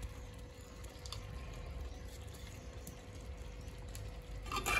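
Thick chole curry simmering in a pot on the stove, with a faint low rumble, a steady thin hum and a few soft pops.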